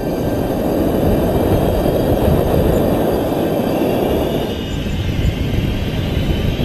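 Wind from a paraglider in flight rushing over the harness-mounted camera's microphone: a steady rumbling wind noise that thins out a little about four and a half seconds in.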